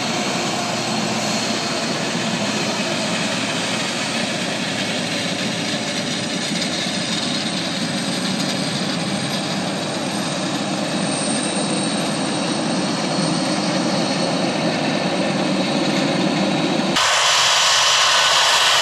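Boeing 747-400's four jet engines running steadily as the jumbo jet taxis past. Near the end the sound changes abruptly to a thinner, brighter hiss.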